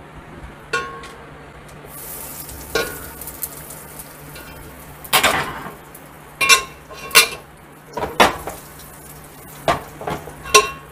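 Cumin seeds and whole dried red chillies sizzling in hot oil for a tadka in a metal pot. The sizzle grows brighter about two seconds in, and a utensil knocks and scrapes against the pot about eight times.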